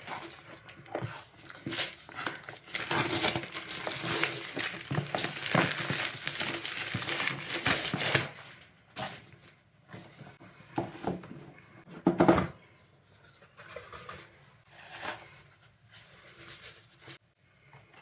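Keyboard packaging being opened by hand: a run of rustling and crinkling of plastic and cardboard, then scattered light knocks and taps as the box and its contents are handled.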